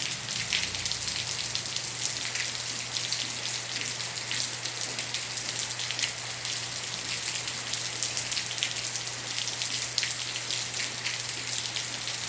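Light rain falling: a steady hiss made up of many small drop ticks.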